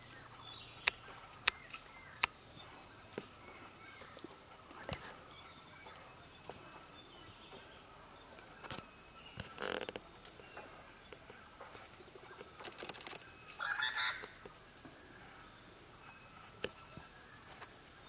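Outdoor bird ambience: a steady high-pitched hum throughout, a few scattered sharp taps in the first half, and a louder bird call about thirteen to fourteen seconds in. A thin, high chirping comes in briefly near the middle and again toward the end.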